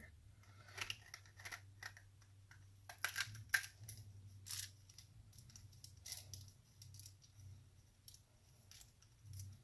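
Plastic LEGO pieces clicking and tapping as they are handled and pressed into place, a scattering of short clicks with a faint steady low hum underneath.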